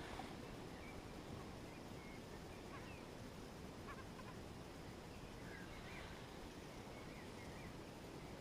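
Faint, scattered short bird chirps, a few at a time, over a steady low background hiss.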